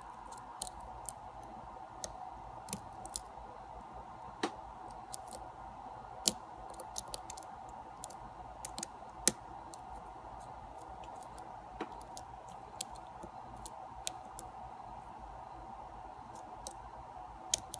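Small, irregular metallic clicks and ticks of a lock pick and tension wrench working the pin stack of a padlock, over a faint steady hum.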